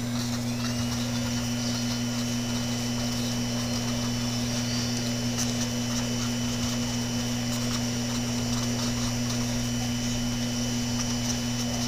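Steady low electrical hum, with a faint high-pitched whine coming in about half a second in.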